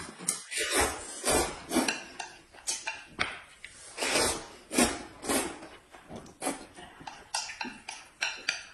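Close-up eating sounds: repeated short slurps and chewing of noodles, with light clicks of chopsticks and utensils against dishes.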